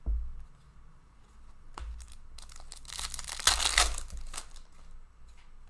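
Trading cards being handled: stiff cards sliding and rustling against each other as a stack is flipped through, with small clicks and a louder crinkly rustle about three to four seconds in.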